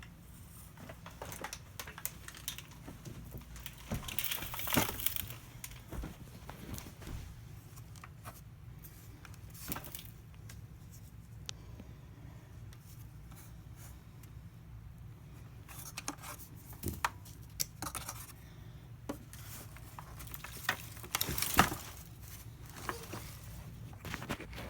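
Intermittent crinkling and rustling with scattered light clicks and knocks, as of things being handled, louder in clusters about four seconds in and again near the end.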